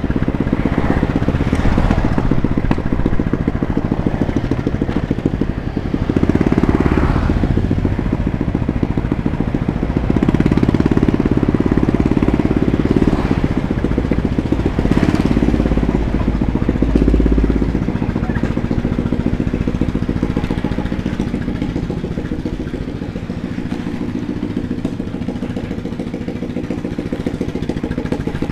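Automatic motor scooter's engine running as it is ridden along a street, with wind rumble on the microphone. It is loudest through the middle and quieter and steadier for the last third.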